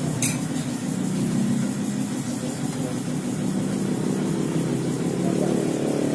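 Yamaha Mio J scooter engine running steadily, its pitch rising slightly about four seconds in, with a short click just after the start.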